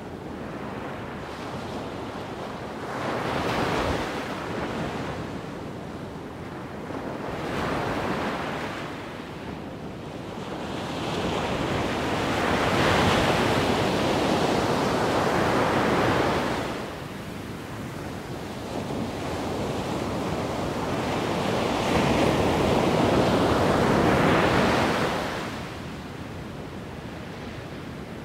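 Wind blowing across the microphone: a steady rushing noise that swells in four gusts, the two longest about twelve to sixteen seconds in and about twenty-two to twenty-five seconds in.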